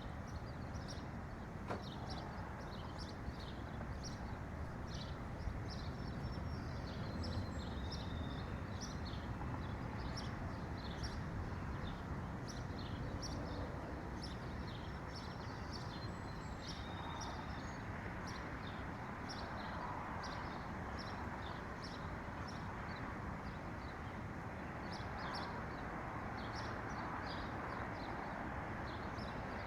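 Many small birds chirping, with quick, short, overlapping calls all the way through, over a steady low background rumble.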